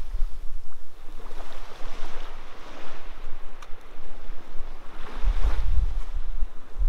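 Sea waves washing up on the shore, with wind buffeting the microphone in gusts, strongest about five seconds in.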